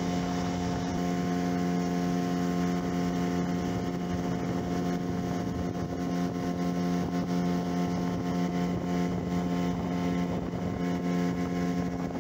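Small outboard motor running steadily at high speed, pushing an inflatable dinghy along, with a constant even drone over the rush of the churned-up wake.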